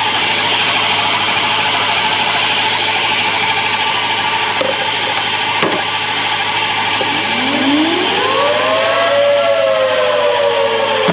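Chevy engine running, with a steady noise from the engine bay. About seven seconds in, a whine rises in pitch, then slowly falls away.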